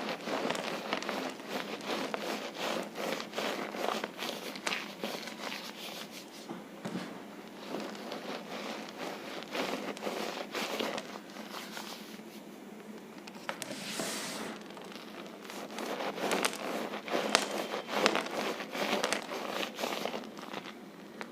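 Cornstarch squeezed and crushed by hand, giving a dense squeaky crunching crackle. It eases off a little past halfway, then picks up again with the loudest squeezes near the end.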